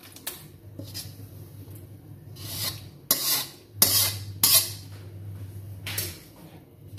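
Metal spatula scraping fried chillies and tomatoes out of a wok into a stone mortar: a few light clicks, then a run of about five short scrapes in the middle.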